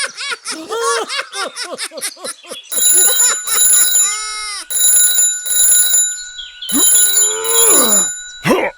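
Quick, squeaky, chirping voice-like sounds, then an alarm-clock-style bell ringing in short on-off bursts from about three seconds in, with a few gliding voice-like whoops over it.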